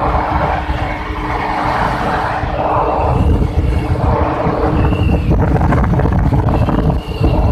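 Honda CD 70 motorcycle's 70cc single-cylinder engine running steadily at cruising speed, its hum mixed with loud wind rush buffeting the microphone.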